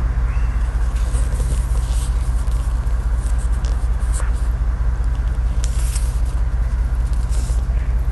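A vehicle's engine running with a steady low rumble, heard from inside the vehicle, with a few faint clicks.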